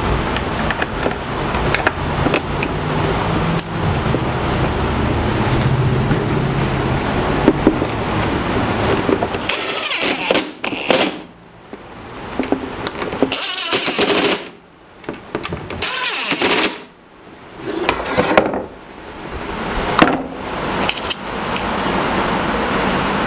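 Cordless drill driving screws into a plastic dust-collection box. One long run is followed by several short bursts with pauses between them.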